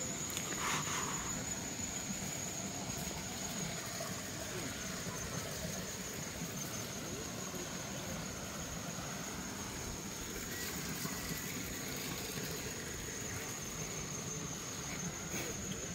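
Insects trilling steadily at one high pitch, a rapid even pulsing that does not let up. A brief scuffing noise about half a second in.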